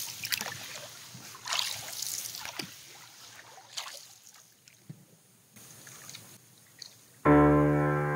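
Canoe paddle strokes swishing and splashing in lake water, one every second or two, fading out. About seven seconds in, piano music starts suddenly and is louder than everything before it.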